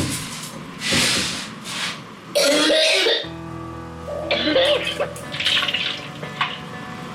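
A young girl coughing hard in a string of harsh coughs. The show suggests it is a forced cough to call her mother.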